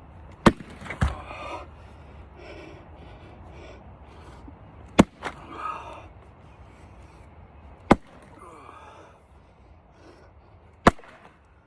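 An 8-pound splitting axe striking red oak rounds: four sharp blows about three seconds apart, with a smaller knock just after the first. Heavy breathing can be heard between the swings.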